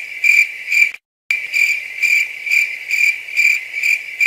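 Cricket chirping sound effect, a high steady chirp pulsing about twice a second, the stock comedy cue for an awkward silence. It drops out briefly about a second in, then carries on.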